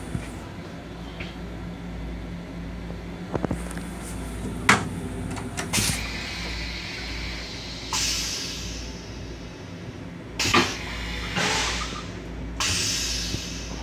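Plastic toilet seat of a railcar restroom clacking as it is handled and raised, with a few sharp knocks, the loudest a little under five seconds in and another about ten seconds in. Short hisses that fade away come around the eighth and twelfth seconds, over the steady hum of the railcar.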